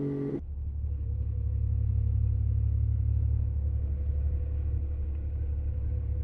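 Steady, muffled low rumble of a motorcycle on the move. Just after the start, the higher engine tones and hiss cut out suddenly, leaving only the deep rumble.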